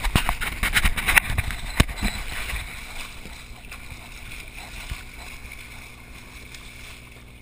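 A hooked billfish thrashing at the boatside while held by the bill: a flurry of hard splashes and knocks in the first two seconds, easing into water sloshing against the hull over the boat's steady low engine hum.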